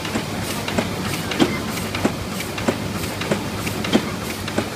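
1986 Miller TP 104 four-colour sheetfed offset printing press running, with a steady mechanical clatter and a sharp clack repeating about every two-thirds of a second.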